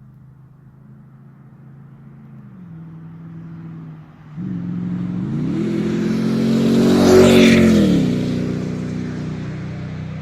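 2008 Toyota Tundra V8 with a Gibson cat-back exhaust driving past. The engine note jumps in loudness about four seconds in as it accelerates, climbs in pitch to its loudest near the seven-second mark, then drops in pitch and fades as the truck goes by.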